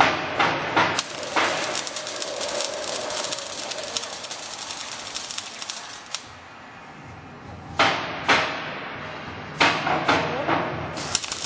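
Wire-feed (MIG-type) welding arc crackling steadily while tack-welding a steel H beam, cutting off suddenly about six seconds in. A few sharp metal knocks follow, and the arc starts crackling again near the end. Similar knocks come just before the arc first starts.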